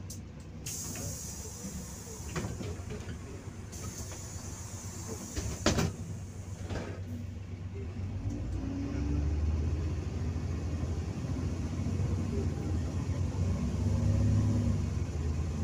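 City bus at a stop: a hiss of air about a second in, typical of the pneumatic doors working, and a sharp knock near six seconds. From about eight seconds the engine's low rumble grows louder as the bus gets under way.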